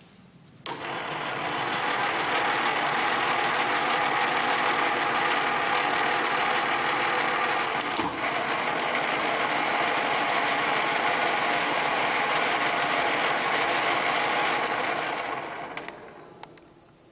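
A motor-driven shop machine switches on with a click, runs at a steady pitch for about fourteen seconds with a single click partway through, then winds down and stops.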